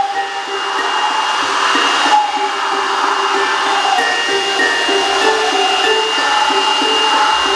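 Cordless electric air blower running steadily, its motor whining with a high tone over the rush of air, dipping briefly about two seconds in.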